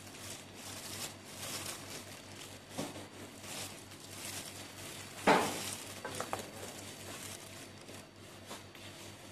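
Gloved hands squeezing and tossing shredded chicken in a stainless steel bowl: thin plastic gloves crinkling and rubbing against the meat, with soft scraping on the bowl. A short, louder sound comes about five seconds in.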